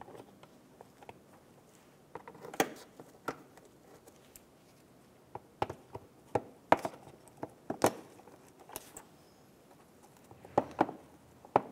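Irregular sharp clicks and knocks of a plastic mud flap and its three bolts being handled and started by hand into the fender liner, in short clusters with gaps between.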